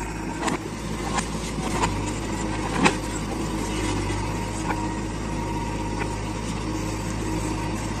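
JCB 3DX backhoe loader's diesel engine running steadily as the backhoe digs and swings, with a few short sharp knocks during the work, the loudest about three seconds in.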